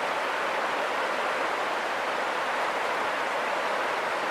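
Steady rushing of a shallow river flowing over rocks and riffles.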